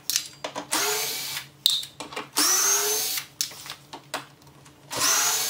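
Cordless drill-driver backing out large Torx screws in three short runs, each a whine that rises in pitch as the motor spins up. Sharp clicks and metal clinks come between the runs, from screws being dropped into a steel parts bowl, one ringing briefly a little under two seconds in.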